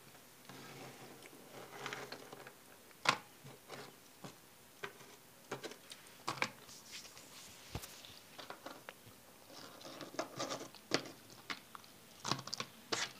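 Chewing of a sugar-coated sour gummy candy, with irregular clicks and knocks throughout. Near the end a hand rummages in a bowl of gummies, giving a quick run of louder clicks.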